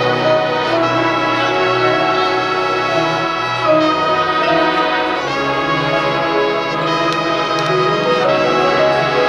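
High school marching band playing, brass-led, sustained chords from trumpets and trombones with changes about four and five seconds in.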